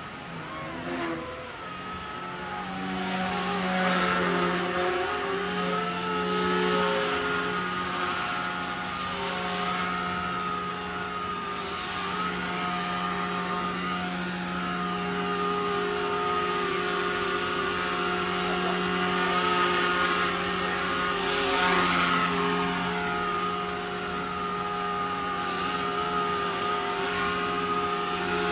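Blade mCP X BL micro collective-pitch RC helicopter in flight: its brushless motor and spinning rotors give a steady high whine over a hum that wavers slightly in pitch. It swells louder a few times, about 4, 7 and 22 seconds in.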